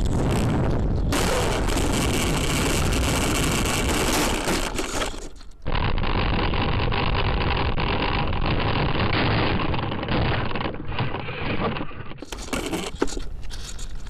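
Steady rushing noise of an RC airplane heard through the camera strapped to it while it skims low over pavement: wind and propeller noise. About halfway through it fades briefly, then returns duller. Near the end it turns brighter and a little quieter, with a few clicks.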